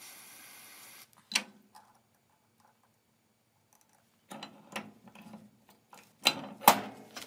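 Small butane torch hissing, cut off about a second in, then a sharp click. After a pause come a series of light metallic clicks and knocks as a bolt and metal parts are handled on a press, the loudest about six and a half seconds in.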